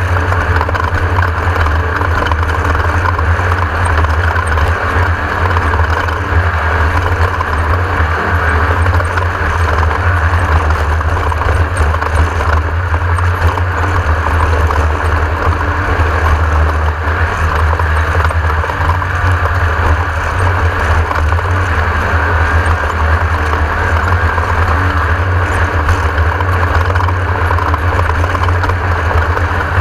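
Class 1600 desert race car's air-cooled 1600 cc VW flat-four running loud and steady under way, a continuous engine drone with no let-up.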